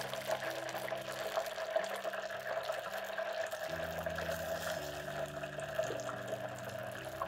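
Battered haddock goujons sizzling steadily in a deep-fat fryer's oil at 180 °C, with fine crackles running through the sizzle.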